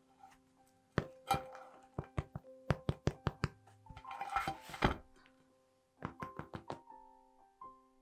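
A freshly baked round loaf of bread being tapped and handled on a glass plate: a run of quick knocks on the crust, with a rough scraping rustle about four seconds in as the loaf is tipped up. Soft piano music plays underneath.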